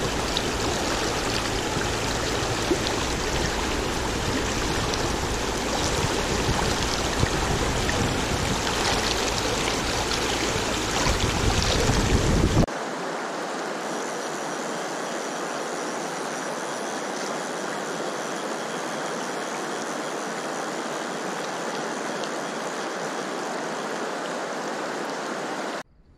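Rushing river water, a steady noise. About thirteen seconds in it changes abruptly to a thinner, steadier rush.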